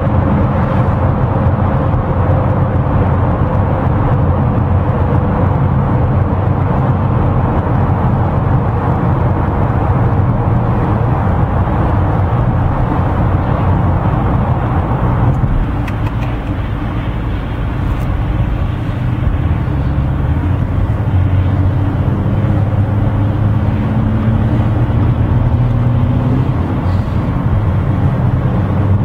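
Steady engine and tyre noise inside a moving car driving through a road tunnel. The noise drops and thins about halfway through as the car leaves the tunnel. Later the engine note climbs as the car speeds up.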